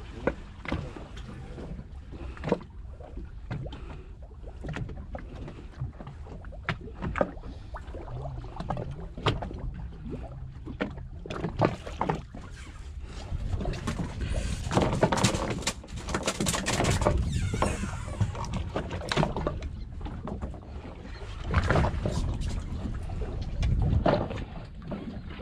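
Water washing against the side of a small boat, with scattered sharp clicks and knocks from fishing line and gear being handled. About halfway through, a louder stretch of splashing and rushing noise.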